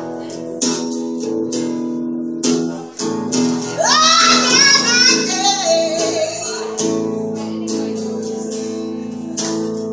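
Woman singing to her own strummed acoustic guitar. The guitar strums chords steadily, and a sung phrase with a wavering, held pitch comes in about four seconds in, the guitar carrying on alone around it.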